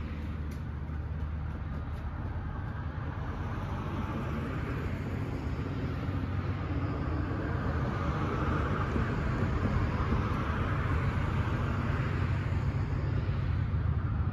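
Steady low rumble of distant vehicle noise with a hiss over it, growing slowly louder.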